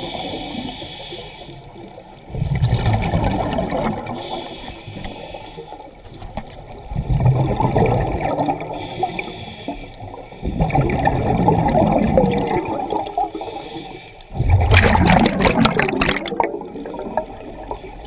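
Scuba diver breathing through a regulator underwater: a thin hiss on each inhale, then a loud rumble of exhaust bubbles on each exhale, about every four to five seconds. The last exhale, about fifteen seconds in, crackles with bursting bubbles.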